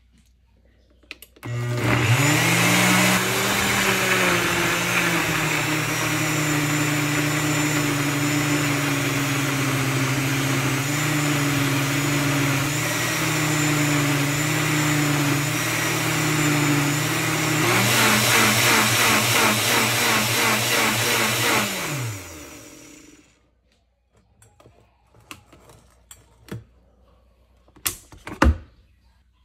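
Nutribullet blender on its Extract setting, pureeing chopped celery: the motor starts about a second and a half in and runs at a steady high speed. About 18 seconds in it switches to a quick pulsing rhythm for a few seconds, then spins down with a falling pitch. Near the end there are a couple of sharp clicks from the jar on the base.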